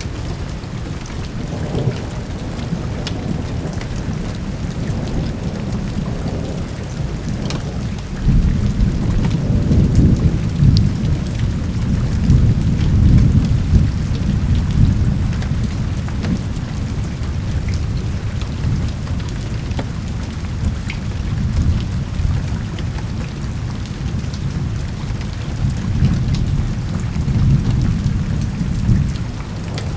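Steady rain with rolling thunder: a deep rumble swells about eight seconds in and rolls on for several seconds, with softer rolls later, over the constant hiss of rain.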